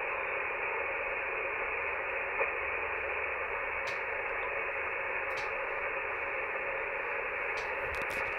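Steady hiss of band noise from an Icom HF transceiver receiving in upper-sideband mode on an open channel with no voice, the hiss cut off above the sideband filter's width. There is one faint tick about two and a half seconds in.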